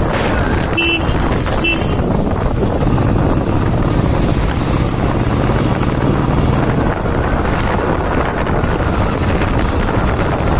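Royal Enfield Bullet's single-cylinder engine running steadily while riding at road speed. Two short beeps about a second apart sound near the start.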